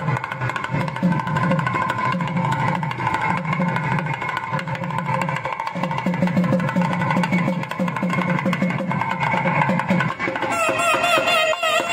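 Traditional music: drums beat in a steady rhythm under sustained held tones. A wavering melody line comes in near the end.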